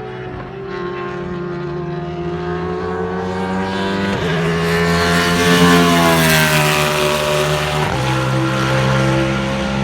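Radical SR8 race car's V8 engine running past at a bend, growing louder to a peak about five or six seconds in while its pitch bends up and then slides down, with abrupt breaks in the note around four and eight seconds in. The engine is misfiring, which spectators hear as it 'missing'.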